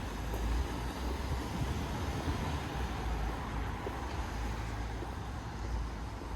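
City street ambience: the steady low rumble and hiss of road traffic.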